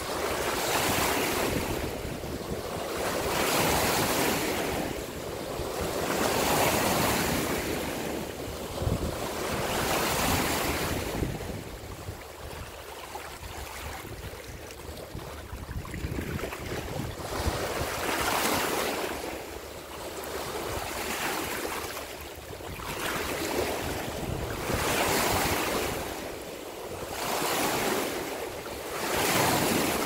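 Small waves washing and lapping at the water's edge, swelling and fading every few seconds, with wind rumbling on the microphone.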